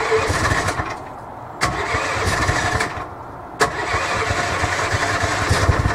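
Cold start of a golf cart's swapped-in Honda GX-clone single-cylinder overhead-valve engine on its electric starter, turned at the key. It cranks twice in short tries without staying running. On the third try, about three and a half seconds in, it catches and keeps running.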